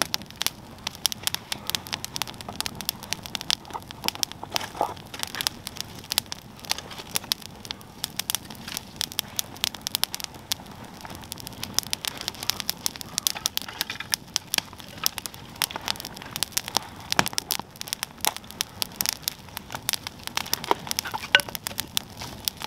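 Small campfire of dry grass and twig kindling crackling, with many irregular sharp pops as the newly lit kindling catches.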